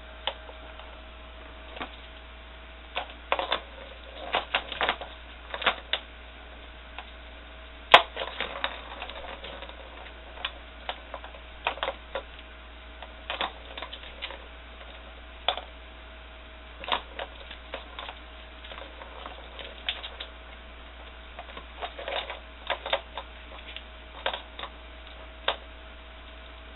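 Round plastic ball-track cat toy clattering as kittens bat at it: irregular sharp clicks and rattles, often in quick clusters, with one louder knock about eight seconds in. A faint steady hum runs underneath.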